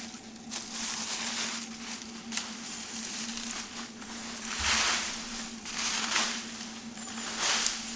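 A rake dragging dry fallen leaves and dead grass across the ground in repeated strokes about a second apart, each a crackling, rustling swish.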